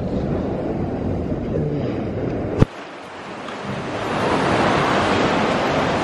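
Artificial waves in a wave pool rushing and breaking, with a low rumble of wind on the microphone in the first half. A sharp click comes about two and a half seconds in, after which the rush of surging water swells and grows louder.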